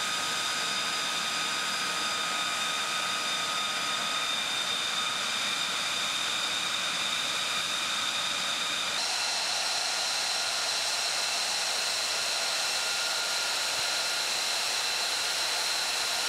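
Steady high-pitched turbine whine over a rushing of air, typical of a jet aircraft's engine running on the ground. About nine seconds in, the whine shifts higher.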